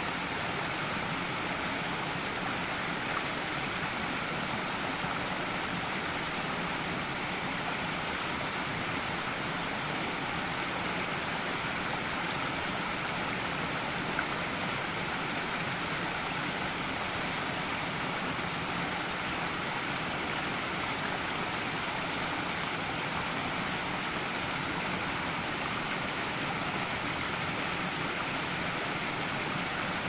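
Small rocky stream splashing down a short cascade between boulders into a shallow pool: a steady, even rush of running water.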